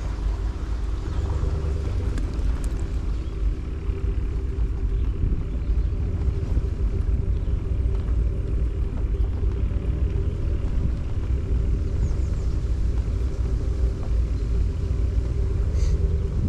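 A vehicle running: a steady low rumble with a steady hum.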